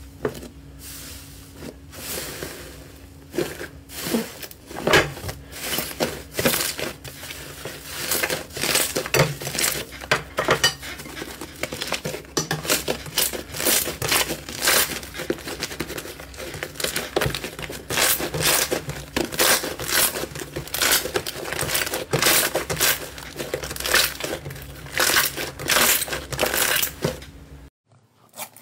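Thick slime being pressed and squeezed by hand, giving dense, irregular crackling pops and squelches as trapped air pockets burst. The crackling stops abruptly near the end.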